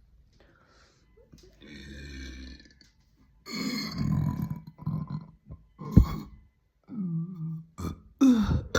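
A woman burping deeply several times: a softer burp about two seconds in, then a long, loud burp, and shorter burps after it, with a loud one near the end.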